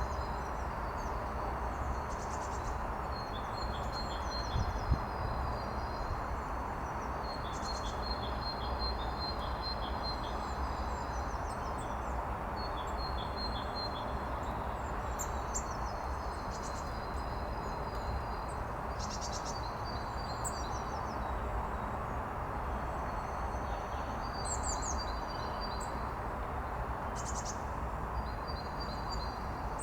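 Small songbirds chirping and trilling in short repeated phrases, over a steady low background rumble.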